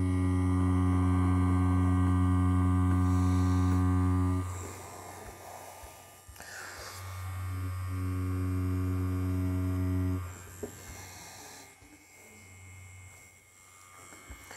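Pen-style tattoo machine running with a steady low hum while lining into synthetic practice skin. It runs for about four and a half seconds, stops, then runs again for about three seconds.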